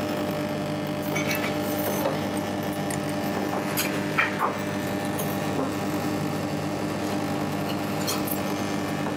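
A knife filleting a sea bream on a wooden cutting board: a few soft clicks and scrapes of blade on bone and board, the clearest about halfway through. Under them runs a steady machine hum, the loudest thing throughout.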